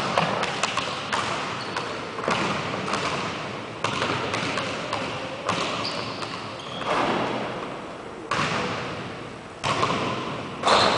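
A basketball bouncing on a hardwood gym floor, with irregular thuds every second or so, each echoing through the large hall.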